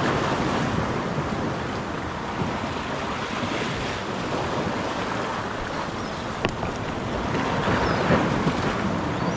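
Waves washing against the jetty's rocks, a steady rushing with wind buffeting the microphone. A single short click comes about six and a half seconds in.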